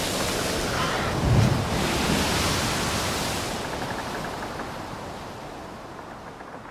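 Wind rushing over the microphone with the wash of the sea, a brief low gust about a second and a half in, then fading out steadily over the last few seconds.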